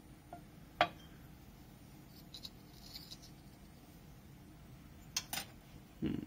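A few sharp, light clicks of glassware and a small metal tool being handled on a countertop: one about a second in, faint ticking in the middle, then two quick clicks near the end and a soft bump.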